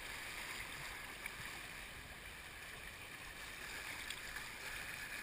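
Steady rush of shallow river water flowing over a riffle around a kayak, with a couple of faint splashes or ticks from the paddle.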